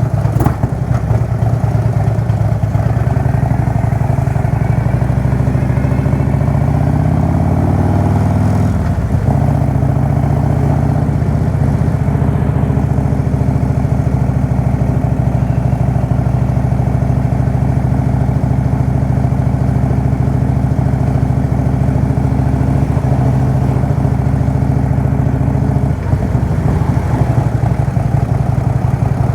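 Motorcycle engine under way, its pitch climbing for several seconds, then dropping suddenly about nine seconds in as it shifts up a gear, then holding steady at cruising speed. There is a brief dip in the engine note near the end.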